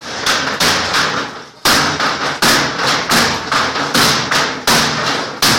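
An axe chopping down into a wooden table-tennis table, a rapid run of about a dozen heavy blows, two or three a second, each a sharp crack with a short ring.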